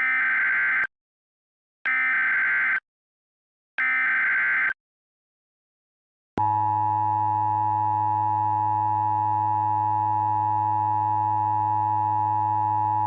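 Emergency Alert System SAME header: three short bursts of warbling data tones, each about a second long and a second apart, which encode the alert's digital message. About six seconds in, the steady two-tone EAS attention signal starts and holds.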